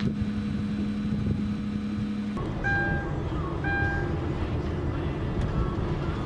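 Steady low rumble of a moving vehicle, with two short electronic beeps about a second apart in the middle.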